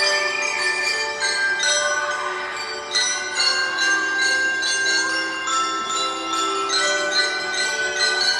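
Bell lyres of a drum and lyre corps playing a Christmas melody, many struck metal notes ringing on and overlapping.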